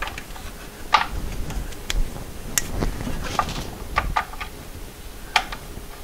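Irregular sharp metallic clicks and taps, about seven in all, from hands and tools working on the timing cover bolts under a VW engine.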